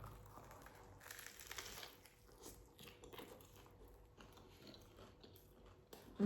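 A person chewing a crunchy bacon cheeseburger: faint, irregular crunches and bites in quick succession.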